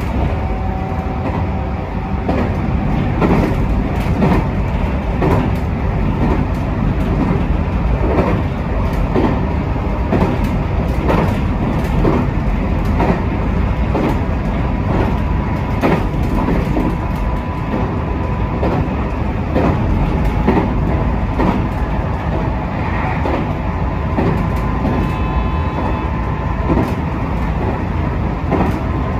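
JR West 221 series electric train running along the line, heard from inside the front car: a steady rumble of wheels on rails with irregular clicks over rail joints. A faint steady whine joins in about halfway through.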